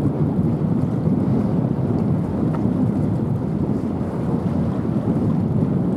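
Wind buffeting the microphone: a steady low rumbling noise with no clear tone.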